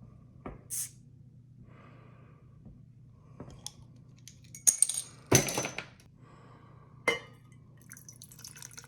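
Beer being opened and handled with a glass: a short hiss about a second in, then several sharp glass clinks and knocks, and the pour starting near the end.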